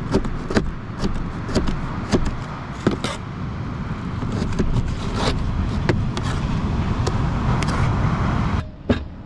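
Meat cleaver chopping fish into small slices for burley on a plastic cutting board: irregular sharp knocks, roughly two a second, over a steady rumble of surf. The rumble drops away near the end, leaving only the chops.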